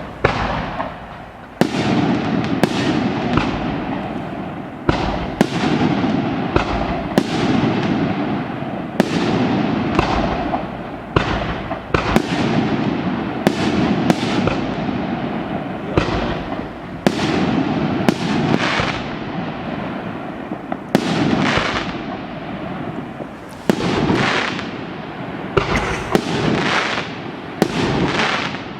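Fireworks going off in a continuous series of sharp bangs, about one a second, each followed by crackling and hissing.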